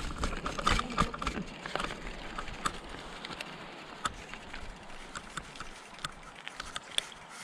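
Bicycle rolling over a rough dirt forest trail: irregular clicks and rattles from the bike and its tyres on the dirt, thinning out toward the end.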